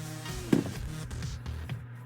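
Background electronic music with a steady low bass note and sharp drum hits, the loudest about half a second in.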